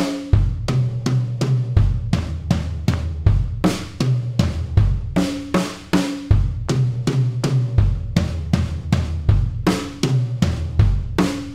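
Acoustic drum kit played in a steady run of single strokes, about four a second, moving around the snare, rack tom and floor tom with bass drum kicks between them. It is a fill-style exercise for moving freely around the set.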